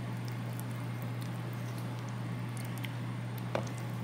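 Spoon stirring tzatziki in a bowl: faint soft squishes and light clicks, with one sharper click of the spoon about three and a half seconds in, over a steady low hum.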